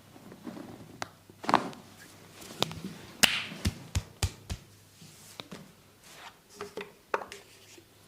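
Massage percussion of hands on a person's body: a series of sharp slaps and chopping strikes. The loudest comes a little over three seconds in, followed by four quick strikes at about three a second, then lighter scattered taps.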